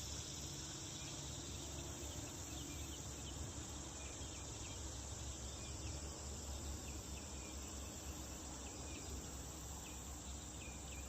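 Insects chirring steadily in the background, with short chirps repeating throughout.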